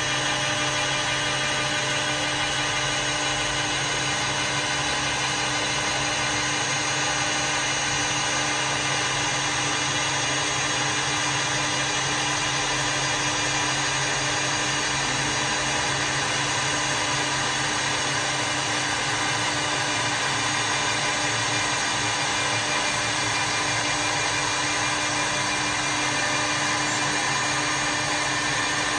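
CNC wood lathe milling a wooden billiard cue blank: the spindle runs steadily and cuts the turning wood as its carriage travels along the bed. It makes an even machine whine with several held pitches.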